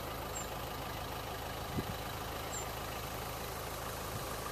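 An engine idling steadily under a constant low hum, with a faint high chirp twice and a soft thump near the middle.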